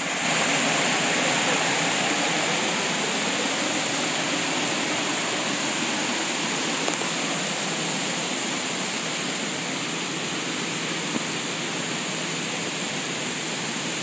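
Waterfall pouring over rocks: a steady, fairly loud rush of falling water that comes up sharply right at the start and eases slightly toward the end.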